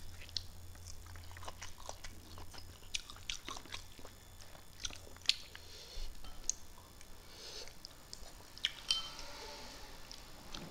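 A person chewing and smacking their lips while eating fish and rice by hand: soft, wet mouth clicks and smacks at irregular intervals.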